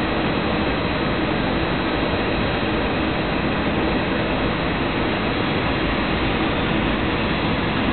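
Steady engine and airflow noise inside the cabin of an Airbus A320 on its landing approach: an even rushing noise with a faint low hum underneath.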